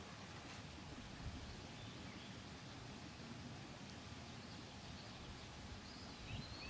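Faint outdoor ambience: a steady low hiss of open air, with a bird calling briefly in a few short whistled notes near the end.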